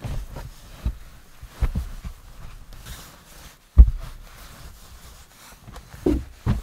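Blankets and a sleeping bag being shuffled and spread out in a cramped vehicle interior: soft rustling broken by about six dull thumps of a body and hands bumping the bed platform, the loudest nearly four seconds in.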